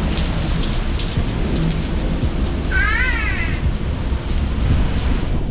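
Heavy rain pouring down steadily, loud and even. About three seconds in, a brief high-pitched call with a quick wavering pitch sounds over it.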